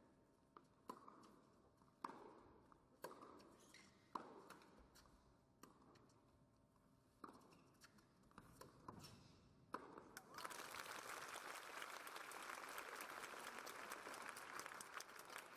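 Tennis ball struck back and forth by racquets in a rally, about one sharp hit a second, ending after about ten seconds. Then the crowd applauds through to the end.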